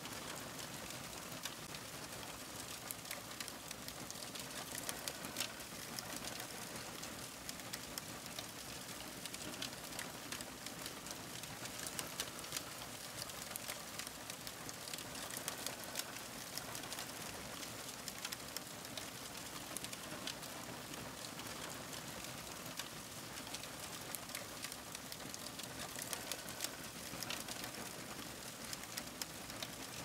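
Wood fire crackling: many small sharp pops and snaps, scattered irregularly over a soft steady hiss.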